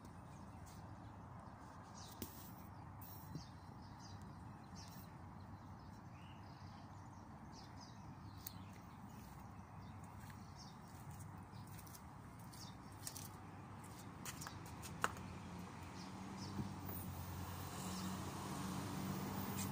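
Quiet outdoor background with scattered light clicks and one sharper click about 15 seconds in. From about 16 seconds a low engine hum comes up and grows louder, as of a vehicle running close by.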